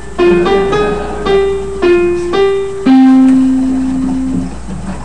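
Electronic keyboard playing a short melody of quick notes, about two a second, ending on a lower note held for about a second and a half before it fades.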